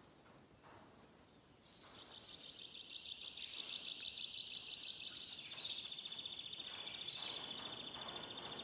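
A bird's high, rapidly pulsing trill in the background. It starts about two seconds in, holds on for several seconds and drifts slightly lower in pitch.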